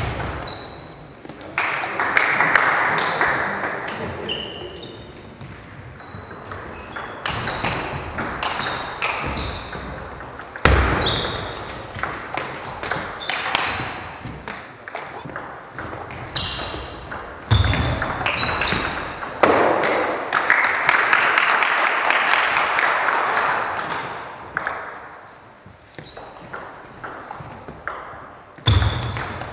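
Table tennis rallies: the ball clicking in quick succession off bats and table, with short high squeaks of shoes on the hall floor. Two spells of crowd noise from spectators come between points, one near the start and one about two-thirds through, with a few deep thuds.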